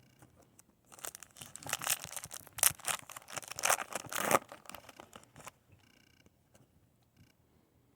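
Foil wrapper of a Yu-Gi-Oh booster pack being torn open and crinkled: a dense crackling that starts about a second in and lasts about three seconds.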